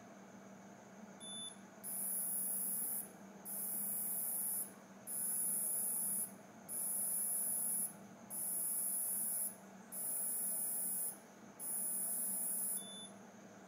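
AURA bioimpedance strap on an Apple Watch giving a series of seven high-pitched electronic beeps, each about a second long with short gaps, during a body-composition measurement. A short chirp comes just before the first beep and just after the last.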